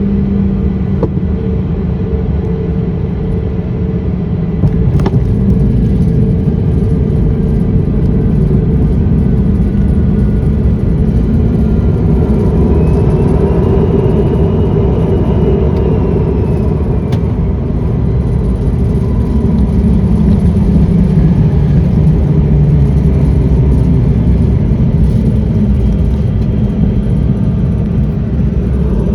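Jet airliner cabin noise heard from a passenger seat around landing: a loud, steady rumble of the engines and airflow. It swells about five seconds in and again around twenty seconds in, with a faint whine that rises and falls in the middle.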